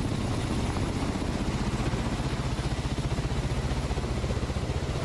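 Ka-52 Alligator attack helicopter flying low and close, its coaxial rotors beating in a fast, even pulse over a steady rushing noise.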